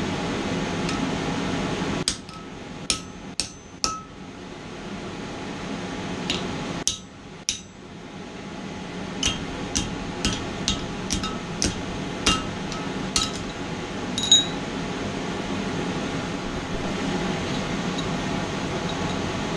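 Hand hammer striking hot mild steel on an anvil, each blow followed by a short metallic ring. There are four blows, a pause, two more, then a run of about ten blows at roughly two a second, ending with a louder ringing strike.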